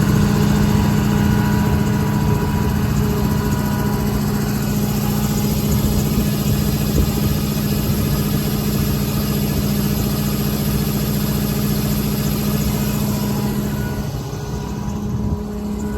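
Cummins 6.7-litre diesel engine running steadily at raised RPM, set with the cruise control, with the PTO engaged to drive the truck's body equipment. The sound drops slightly about fourteen seconds in.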